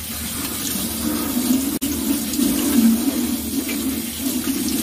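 Tap water running steadily into a stainless steel sink while napa cabbage leaves are rinsed under the stream. The sound cuts out for an instant about two seconds in.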